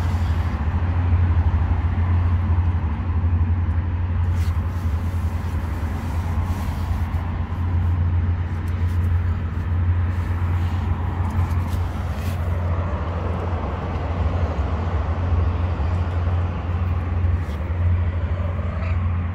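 Steady low motor rumble under a broad hiss of outdoor noise, with a few faint clicks about four, seven and twelve seconds in.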